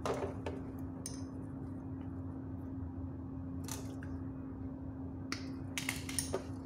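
Scattered light clicks and taps of hands handling a plastic LED lamp housing, its wires and hand tools, with a quick cluster of sharper clicks near the end as side cutters are picked up. A steady low hum runs underneath.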